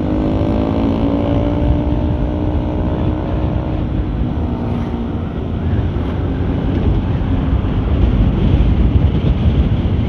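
Riding sound from a moving scooter: wind rumble on the microphone throughout, with an engine note that holds and slowly drops in pitch over the first four or five seconds before it is lost in the wind.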